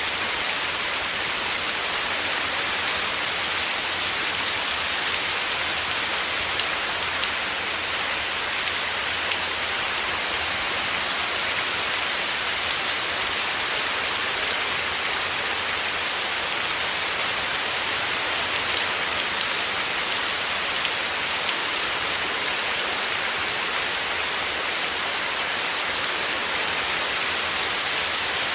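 Heavy rain falling steadily: a dense, even hiss of countless drops with no break or change in strength.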